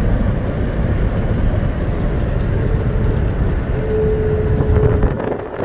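Engine and road noise inside a moving vehicle's cabin: a steady low rumble, with a steady whine that comes in for about a second past the middle.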